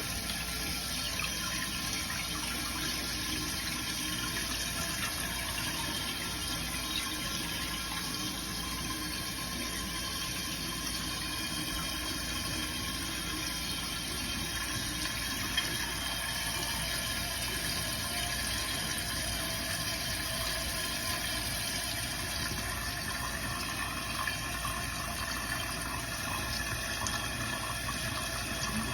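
Toilet tank refilling with the supply just turned back on: water running in through the fill valve with a steady hiss.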